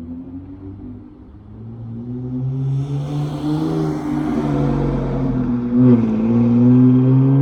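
Dodge Charger GT running through Flowmaster 40 dual exhausts, accelerating hard, its engine note climbing and getting louder. About six seconds in the pitch dips sharply as it shifts from first to second gear, then it pulls again at its loudest.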